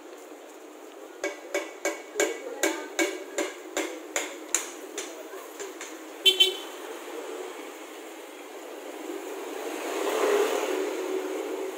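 Street noise: a run of about a dozen sharp, evenly spaced knocks lasting a few seconds, then a short vehicle horn toot past the middle, and a vehicle passing with a swelling rush near the end.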